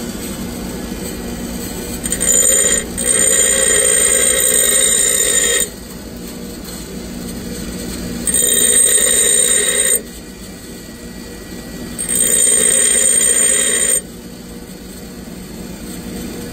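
Bench grinder running with a steady hum while a steel twist drill is pressed to the wheel in about four passes, each one to three seconds long, giving a high ringing whine while the steel is on the wheel. The passes are grinding the secondary facets of a four-facet drill point.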